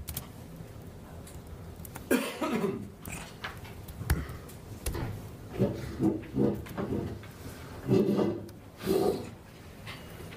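A person's voice in a lecture room, a few short indistinct utterances too faint or muffled to make out as words, with several sharp clicks or knocks in between.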